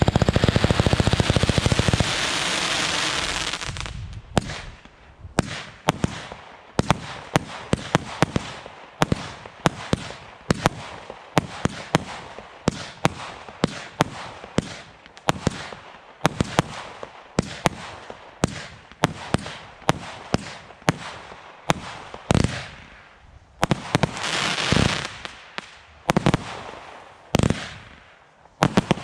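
Standard Fireworks Poseidon 90-shot firework cake firing. It opens with a rapid volley of shots and a spell of crackling, then fires single shots at about two a second, each a sharp report. Another spell of crackling comes about three-quarters of the way through.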